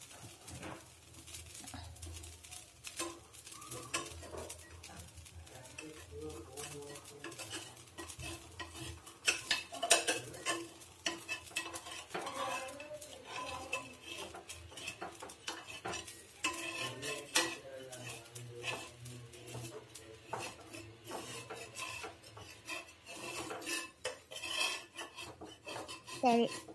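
Irregular clinks and scrapes of a metal utensil on a dosa pan, with faint sizzling, as a thin rice dosa (tellevu) cooks.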